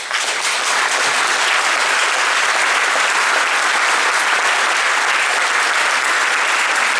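Large audience applauding: dense, steady clapping that breaks out abruptly and holds at full strength.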